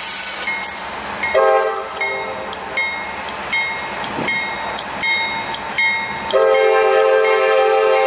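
Freight-train diesel locomotive's air horn sounding for a grade crossing: a short blast about a second and a half in, then a long blast starting near the end. Under it a warning bell rings steadily, about three strokes every two seconds.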